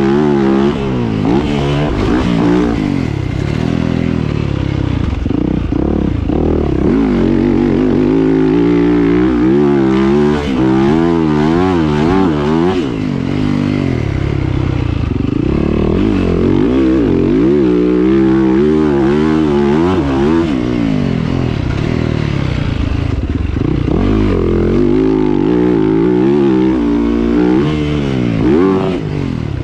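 2022 Yamaha YZ450F's single-cylinder four-stroke engine under a rider, revving up and dropping back over and over, its pitch rising and falling all through.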